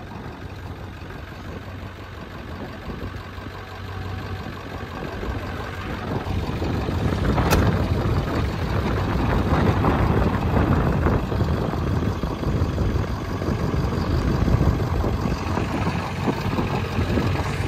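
A 1997 Ford F-250's 7.3 L Power Stroke turbo-diesel V8 idling with its typical diesel clatter, getting louder a few seconds in. A single sharp knock about seven and a half seconds in, most likely the truck's door being shut.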